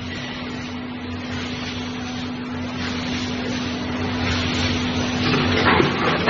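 Automatic rotary vacuum pouch-packing machine running: a steady hum and hiss, slowly growing louder, with mechanical clicks and clatter joining in near the end.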